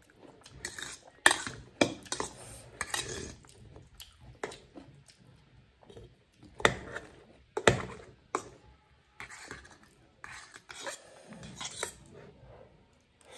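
Metal fork scraping and clinking against a stainless steel bowl as noodles are gathered, in irregular sharp clinks, loudest about a second in and twice more near the middle.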